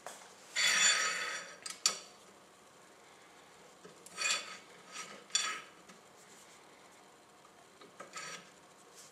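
Hydraulic press being pumped up on a screw test fixture: short squeaking, rubbing strokes of metal with a faint ring, the longest and loudest near the start, and a sharp click about two seconds in, while the load climbs on the screws.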